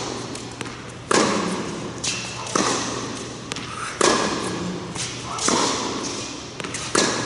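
Tennis rally: a tennis ball struck hard by racquets about every second and a half, five sharp hits in all, each ringing on in the echo of a large indoor tennis hall, with fainter taps between them.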